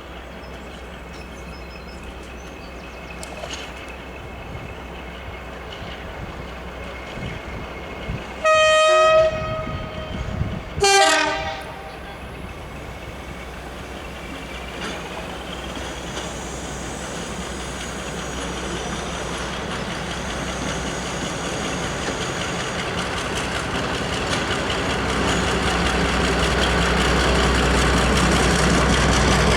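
A locomotive gives two short blasts about nine and eleven seconds in, the second lower in pitch and dipping slightly. A train's running noise then builds steadily louder toward the end as it approaches.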